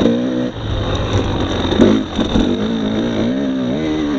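2018 Husqvarna TX300 two-stroke enduro bike engine being ridden, its pitch rising and falling again and again with the throttle. The revs drop briefly about half a second in and again near two seconds in.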